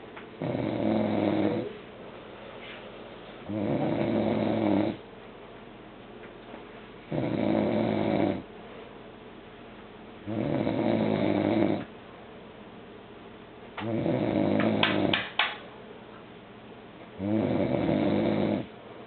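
A man snoring in a steady rhythm: six long snores, one about every three and a half seconds. The fifth snore ends in a few sharp clicks.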